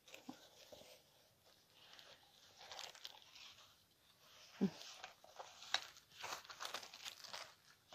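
Faint rustling and crinkling of the wrapping and the rolled diamond-painting canvas as it is opened and unrolled, with a brief low thump about halfway through.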